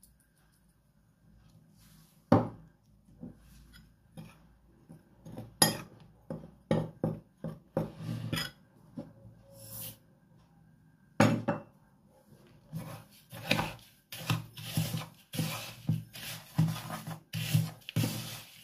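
A few sharp knocks of utensils and containers against bowls, then a metal spoon stirring breadcrumbs in a plastic bowl, scraping about twice a second.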